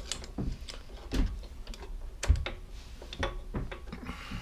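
Irregular small clicks and taps of hands and a small tool working at a lawnmower carburettor, loosening its bottom bolt to let fuel down and check that the carburettor is getting a fuel feed. One louder knock about two seconds in.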